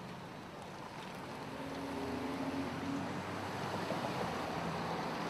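Pickup trucks driving past close by, their tyres and engines on the road getting louder from about a second in.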